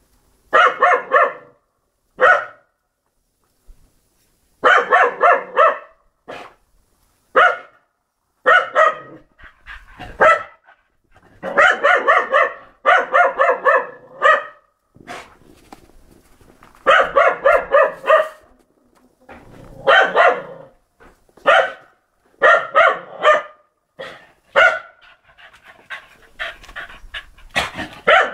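A dog barking over and over, in quick volleys of several barks with short pauses between them.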